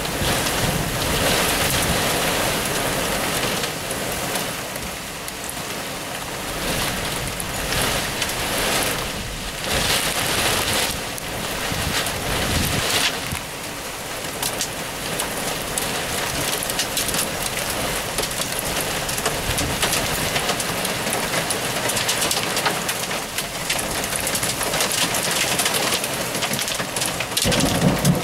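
Thunderstorm rain pattering on a window, a dense spatter of drops that swells and eases.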